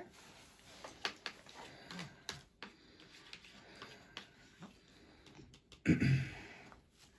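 Soft, scattered clicks and taps of a baby being spoon-fed cereal: the spoon at his mouth, small mouth smacks, and fingers on the plastic high-chair tray. A single louder, short noise comes just before six seconds in.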